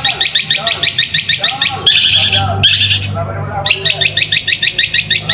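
Long-tailed shrike (cendet) singing in fast, sharp repeated notes, about six a second. Near the middle the run is broken by two harsh rasping bursts, then the quick notes resume.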